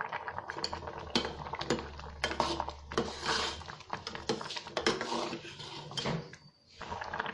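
A steel spoon stirring milky rice pudding in a metal pot, clinking and scraping irregularly against the pot's sides and bottom. The stirring pauses briefly near the end.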